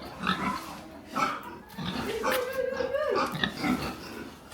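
Farm animal calls: a couple of short calls, then a long pitched call about two seconds in that holds level for nearly a second before dropping away.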